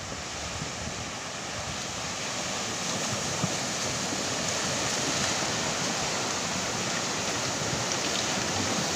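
Rushing water of a flash-flood surge coming down a small stream, growing louder over the first three seconds and then holding steady as the floodwater fills the channel.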